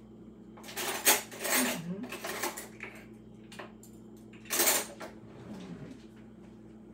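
Dishes and metal cutlery clattering: a run of clinks and knocks for about two seconds, then a short burst again a few seconds later.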